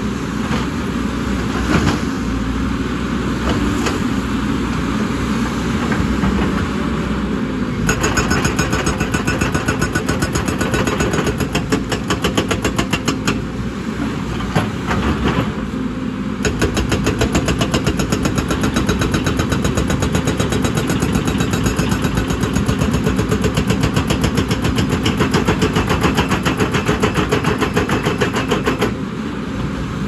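A JCB tracked excavator's hydraulic rock breaker hammers rock in rapid, evenly spaced blows. The hammering starts about eight seconds in, pauses briefly twice and stops near the end, over the excavator's diesel engine running steadily throughout.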